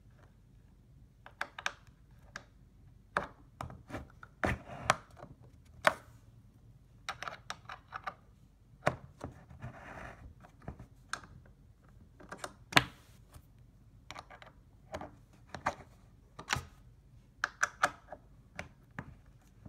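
Irregular clicks and knocks of a hand screwdriver tightening screws into an IKEA Malm bed frame's height-adjustment fittings, with a short scraping rub about ten seconds in.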